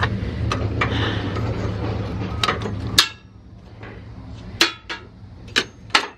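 Scrap metal parts being handled and knocked together: a series of sharp metallic clanks and clinks with short ringing, the loudest near the end. A low steady hum under the first half stops suddenly about halfway through.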